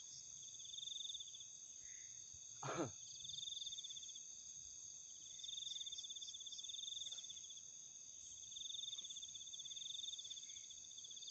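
Night insects, crickets, chirring steadily: a constant high whine with pulsing trills that swell and fade every couple of seconds. A single short pitched sound cuts in about three seconds in.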